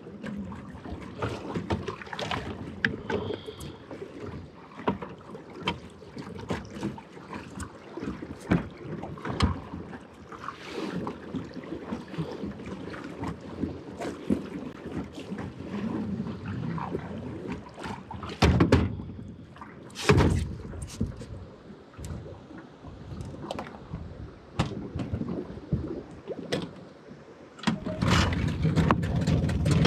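Small fishing boat on a river: scattered knocks and clicks over water and wind noise, with two louder knocks about two-thirds of the way through. A louder, steady low rumble comes in near the end.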